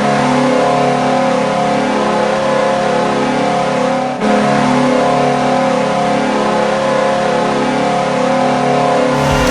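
Hockey arena goal horn sounding a loud, steady multi-tone chord held for about nine seconds, with a brief dip about four seconds in.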